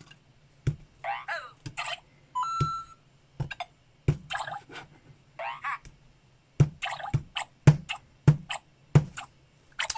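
LEGO Luigi figure's small built-in speaker playing short electronic sound effects: quick chirpy blips with sliding pitch, a held beep about two and a half seconds in, and sharp clicks scattered between them, faster in the second half.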